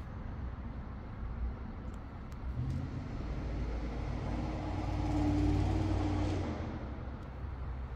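A motor vehicle drives past, its engine hum swelling from about three seconds in to a peak past the middle, then fading away, over a steady low background rumble.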